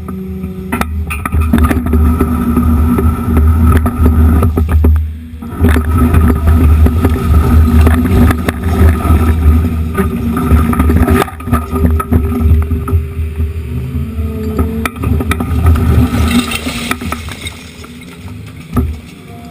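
Excavator's diesel engine running hard with a steady hydraulic whine, while chunks of broken concrete and asphalt knock and clatter as the bucket scrapes and piles them.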